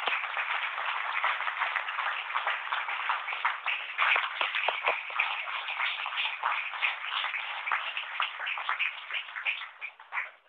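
A roomful of people applauding: many hands clapping densely together, dying away sharply near the end.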